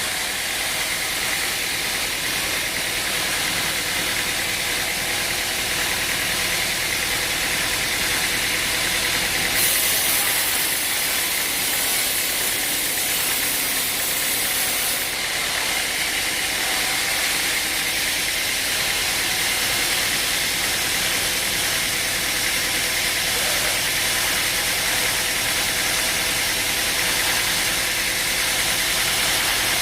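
An engine-driven machine running steadily under a loud, even hiss. The hiss grows brighter for about five seconds around a third of the way in.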